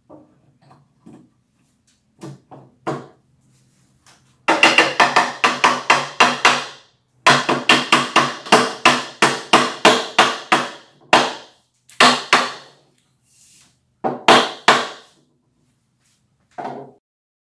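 White-headed mallet tapping a solid-wood bookshelf top down onto its leg tenons: two fast runs of strikes, about four a second, each with a short ring, then a few single taps. A few soft knocks come first as the board is set on the frame.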